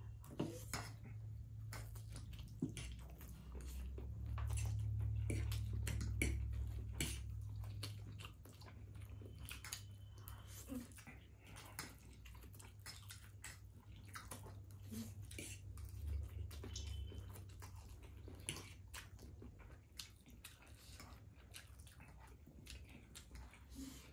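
Forks clicking and scraping on plates, with chewing and slurping of noodles as two people eat fast. A steady low hum runs underneath, louder from about four to eight seconds in.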